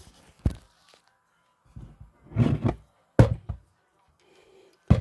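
A wooden picture frame handled on a table: a few sharp knocks and clicks, the loudest about three seconds in, and a short scraping rustle just before it.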